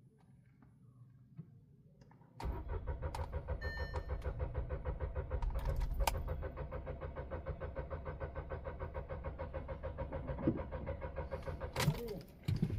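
Volkswagen Taigun's starter cranking the engine, an even rhythmic churning with a steady whine, for about nine seconds without the engine catching. It begins about two seconds in and cuts off abruptly near the end. The owner traced the failure to start to fuel starvation: a nearly empty tank with the car parked on a slope.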